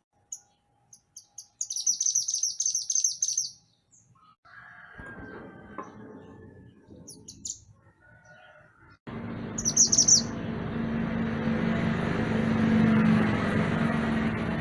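Mantenan gunung songbird calling: a few sharp high chirps, then a fast, loud trill, and more chirps later. About nine seconds in, a steady rumbling noise with a low hum starts abruptly and stays louder than the bird.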